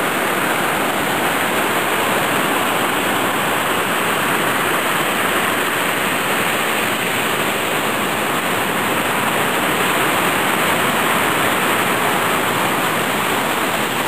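River waterfall: a steady, even rush of falling water.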